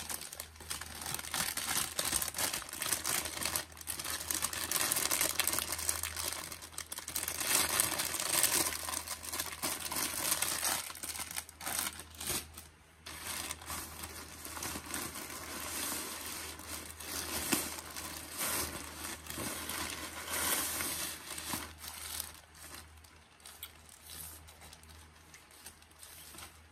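Clear plastic packaging crinkling and rustling as it is handled, with many small crackles. It is loudest in the first half and quieter near the end.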